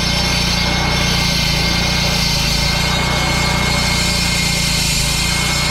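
Gas-engined walk-behind concrete saw running steadily at high revs, with a steady high whine from the blade, while saw-cutting control joints in a freshly poured concrete driveway.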